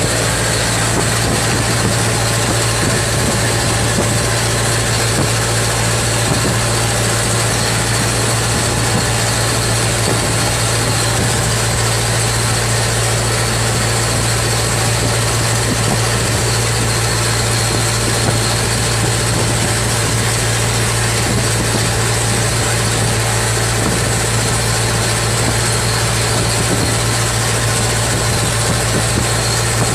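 A steady engine drone with an even hiss over it, like a motor idling.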